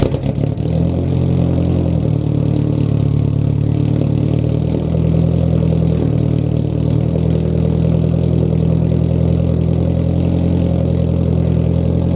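Straight-piped Nissan 240SX (S14) engine firing up and settling into a steady, loud idle. It is a cold start after the car has sat for about two weeks.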